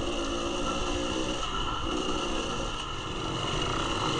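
Two-stroke dirt bike engine running, its revs shifting up and down.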